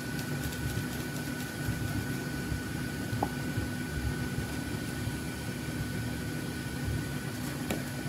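Steady whirring of a fan, with a faint high steady tone over it and a faint click near the end.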